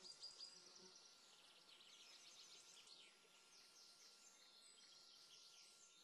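Near silence after music cuts off, with faint high-pitched chirping throughout.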